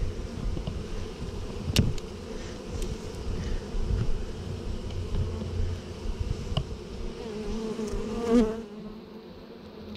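Saskatraz honeybees buzzing steadily around an opened package and hive. There is a sharp click about two seconds in, with a few lighter ticks after it. About eight seconds in, a louder buzz with a wavering pitch passes close by.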